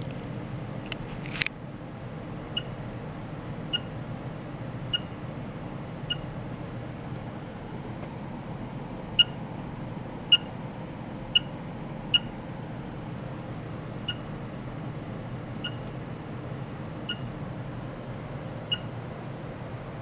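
Short high electronic beeps from a function generator's key beeper, coming roughly once a second as its setting knob is turned. They are loudest and quickest around the middle, over a steady low hum of lab equipment.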